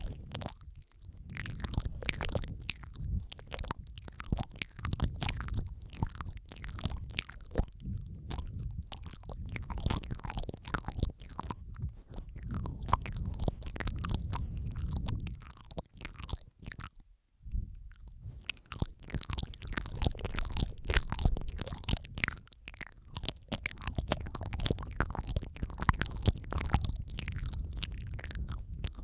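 Layered ASMR mouth sounds close to the microphone: dense wet clicks and smacks over a low rumble, with a brief pause about 17 seconds in.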